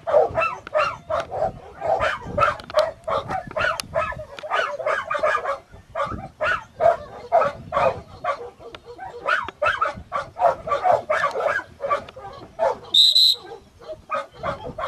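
Dogs barking rapidly and without a break, about five barks a second. Near the end there is one short, high whistle blast.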